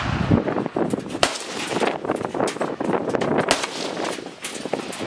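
Gunfire: scattered sharp cracks of shots, the clearest about a second in and another past the middle, over a rough noisy background.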